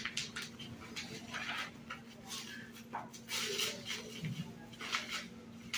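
Plastic bubble wrap and kraft paper rustling and crinkling in irregular bursts as a framed picture is unwrapped by hand.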